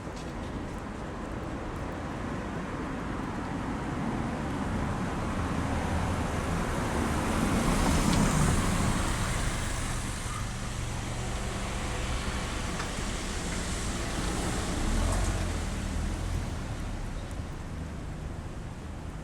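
Vehicles passing on a rain-wet road: tyre hiss and engine rumble swell to a peak about eight seconds in and fade, with a second, smaller swell near the end.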